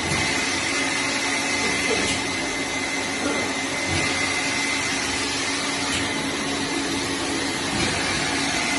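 Glass bottle washing machine running: a steady rushing noise with a constant high whine and a lower hum.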